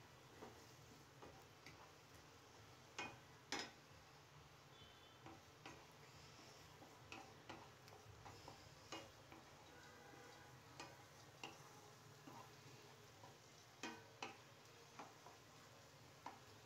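Faint, irregular clicks and scrapes of a wooden spatula against a nonstick kadhai as scrambled egg bhurji is stirred and broken up while frying. There are two louder knocks about three seconds in and another pair about fourteen seconds in.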